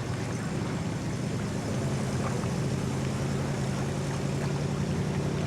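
Racing boat's engine running steadily, growing a little louder about two seconds in.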